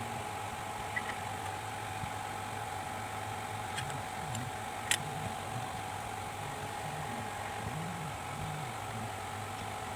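A steady mechanical or electrical hum with a constant high tone over it, and a few small clicks, one about a second in and a sharper one about five seconds in.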